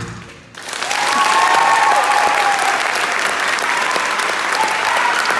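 A choir's last sung note stops and, after about half a second of quiet, the audience breaks into loud applause with whooping voices over it.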